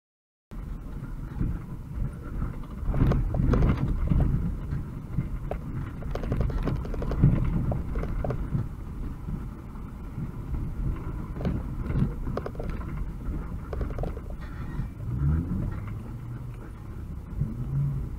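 UAZ 2206 van's engine running at low speed on a rough dirt track, heard from inside the cab, with the body and loose fittings rattling and knocking over the bumps. A brief rising engine note comes about fifteen seconds in.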